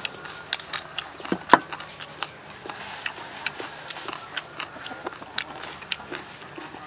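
Irregular sharp clicks and taps of a metal fork on a bowl and on pieces of boiled pork offal, with one louder knock about a second and a half in as the bowl is set down on the wooden table.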